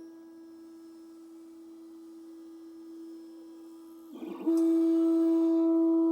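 Creality CR10 S5 3D printer's stepper motors singing a steady single-pitched whine as the print head travels along long print lines. About four seconds in there is a brief rattling change of move, and the whine comes back much louder at the same pitch.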